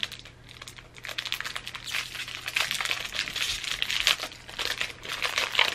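Small clear plastic bag crinkling as fingers work a keychain out of it: a quick, irregular run of crackles that picks up about a second in.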